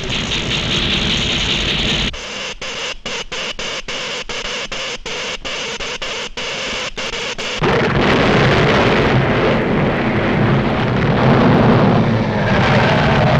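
Cartoon sound effects of an electric earthquake machine: a steady electrical hiss, then a few seconds of rapid, irregular crackling like sparking, then, about eight seconds in, a loud, sustained rumble as the induced earthquake begins.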